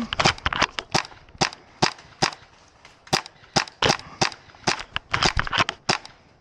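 Skirmish-game guns firing rapid single shots, about twenty sharp pops at roughly three a second. Some come in quick runs, and they stop shortly before the end.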